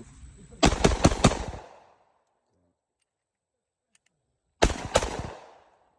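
Gunshots in rapid fire: a quick string of about five shots just under a second in, then two more shots close together near the end, each with an echoing tail.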